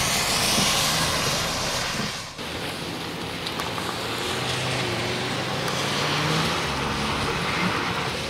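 Volkswagen Golf hatchback's engine running as it drives a slalom course on soaked pavement, its tyres hissing through standing water. A low engine note climbs a little in the second half, over a steady hiss of rain.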